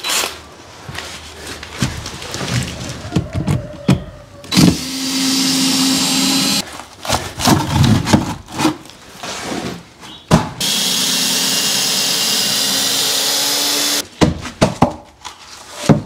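Knocks and clatter, then a power tool's motor run twice at a steady pitch, first for about two seconds and then for about three and a half, each a steady hum with a strong hiss over it. More knocking comes between the two runs.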